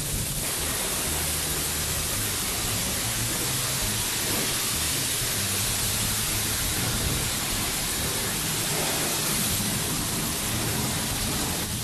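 Self-service car wash high-pressure wand spraying water onto a car: a steady, even hiss of spray.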